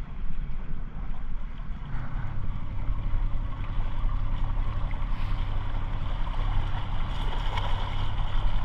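Boat motor running steadily under way while trolling, with wind and water noise over it.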